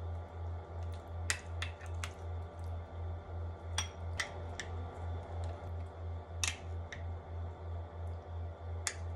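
A serving spoon clicking and scraping against a small porcelain bowl, about ten short sharp clicks at uneven intervals as fried eggplant and leeks in sauce are spooned in. Beneath it runs a steady low hum that pulses about four times a second.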